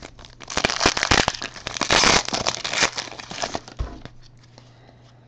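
Foil wrapper of a Panini Prizm World Cup trading-card pack crinkling and tearing as it is opened, a dense crackle lasting about three seconds before fading away.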